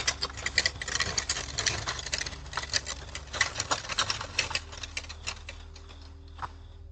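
Barbecue grill rattling and clattering as it is moved: a fast, irregular run of metallic clicks and knocks that thins out about six seconds in.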